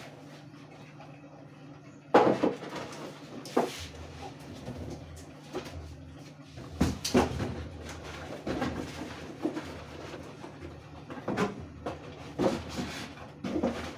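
Kitchen items being handled and put away: irregular knocks and clatters, starting about two seconds in, over a low steady hum.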